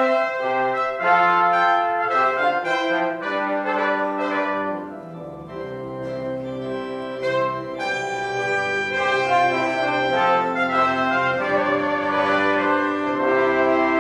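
Slow instrumental music of held chords with a brass sound, several parts moving together and dipping quieter about five seconds in before swelling again.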